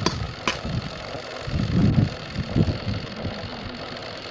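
A truck's engine running while it drives, heard from its open back, with a steady rough noise and low rumbling. There are two sharp clicks within the first half-second.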